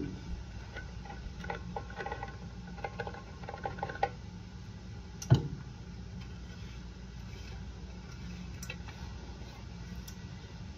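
Dried parsley and a grill's dehydrator tray being handled: a run of small clicks and crackles, then a single loud knock about five seconds in, over a steady low hum.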